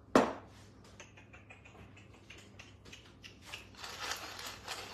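A sharp knock just after the start, then a few light scattered ticks. From about three and a half seconds in, a hand-twisted pepper mill grinds peppercorns with a fast, even, gritty clicking.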